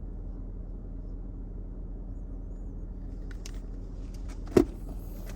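Steady low hum of a car engine idling, with one sharp knock about four and a half seconds in.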